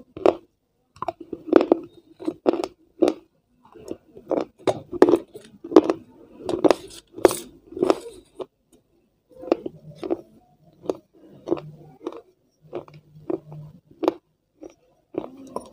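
Close-miked biting and crunching of a small baked clay pot, with chewing: sharp, irregular crunches about two a second, growing softer and sparser about halfway through.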